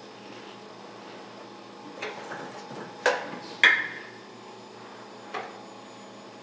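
Clinks and knocks of a glass storage jar and its lid being handled: a few sharp knocks, the loudest about three and a half seconds in with a brief ring.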